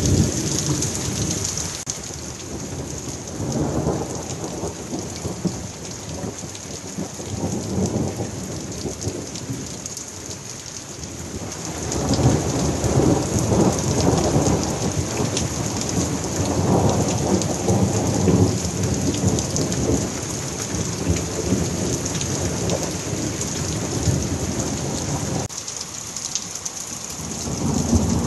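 Heavy downpour hissing steadily, with rolls of thunder rumbling through it: a long, loud roll around the middle that lasts several seconds, and another building near the end.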